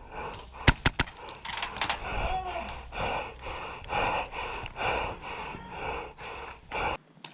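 A player panting hard, about two breaths a second. A few sharp clicks or knocks come in the first second or so.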